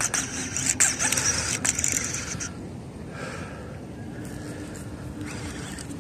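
A hooked fish being fought on rod and reel: a hissing noise with sharp clicks, which dies down about two and a half seconds in.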